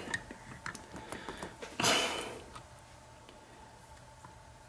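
Small clicks and a brief scraping rustle of a lock pick set and a lock being handled, followed by a few faint ticks.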